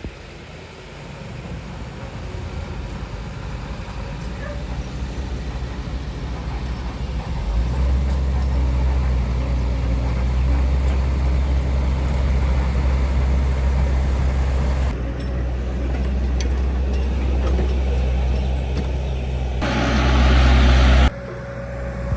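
Heavy diesel engine of construction machinery running with a deep, steady drone that grows louder over the first several seconds. Near the end a loud hiss lasts about a second and then cuts off abruptly.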